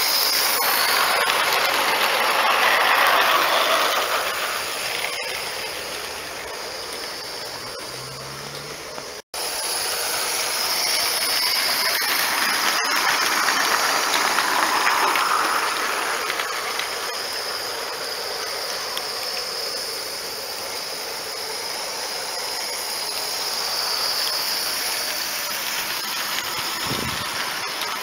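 Live-steam garden-railway model steam tram running with a string of wagons, its steady hiss of escaping steam and the rattle of small wheels on the track swelling and fading as it passes near. The sound breaks off sharply about nine seconds in, then picks up again.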